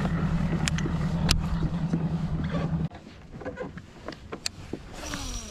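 Steady low hum of a small boat motor that cuts off abruptly about three seconds in. A cast with a baitcasting rod follows, and the reel's spool whirrs briefly near the end.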